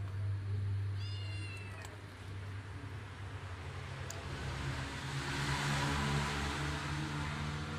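A short, high animal call falling in pitch about a second in, over a steady low hum, with a brief click just after four seconds.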